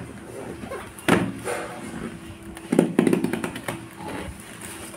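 A cutter scraping and slicing through the packing tape and cardboard of a parcel box. A sharp knock comes about a second in, and a heavier thump near the middle is followed by a quick run of clicks.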